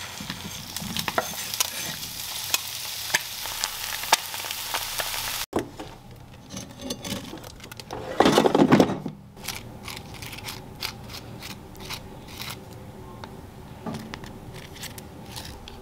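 Sliced sausage sizzling and popping as it hits a hot frying pan, a dense crackle that cuts off abruptly after about five seconds. Then quieter kitchen handling sounds: a loud scrape lasting about a second as the air fryer drawer is handled, and scattered light clicks and taps.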